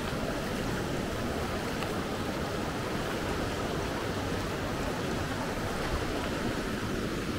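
Steady rushing of a small creek's water flowing over its shallow, rocky bed.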